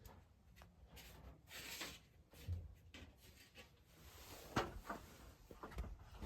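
Faint, scattered knocks and clicks, like things being handled or moved, with the sharpest knock about four and a half seconds in.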